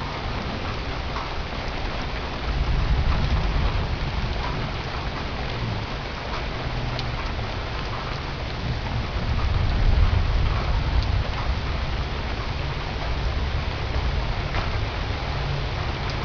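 Heavy rain falling steadily, with low thunder rumbling up twice, about three seconds in and again around ten seconds.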